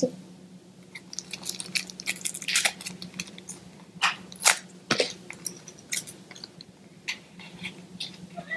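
Plastic toy packaging crackling and clicking in short, irregular bursts as hands work open a small pink plastic pot and its clear plastic cover.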